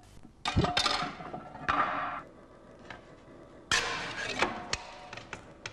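Slate being split into thin sheets by hand: a few sharp knocks, each followed by short bursts of crackling and scraping, the strongest about half a second in and around four seconds.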